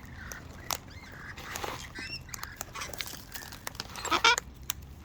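Wild parrots calling, with faint chirps about two seconds in and one short, harsh squawk near the end, among scattered sharp clicks.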